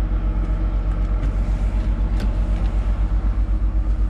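An engine running at a steady idle: a low, even throb of about ten pulses a second with a steady hum above it.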